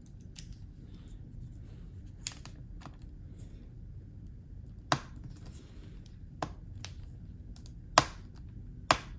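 Irregular sharp clicks and taps of a small screwdriver and screws on an opened laptop, about a dozen scattered through, the loudest near the end.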